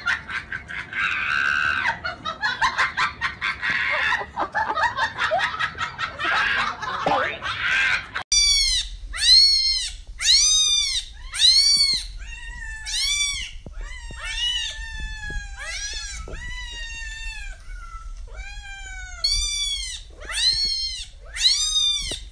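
Cat meows repeated about once a second, each rising then falling in pitch. A noisier stretch of clicks and hiss comes before the meows start, about a third of the way in.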